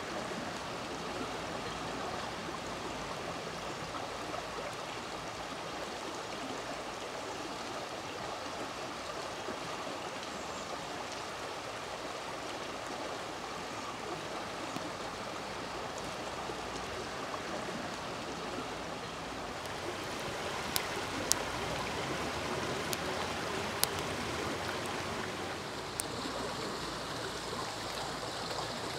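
Shallow stream running over stones: a steady rush of water. A few sharp pops, about five, come in the second half.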